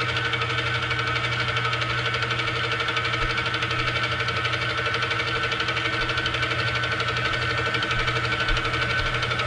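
Milling machine spindle running steadily as a small drill bit bores into the crank's disc to drill a balance hole: a steady machine hum with several held tones and a fast, even flutter.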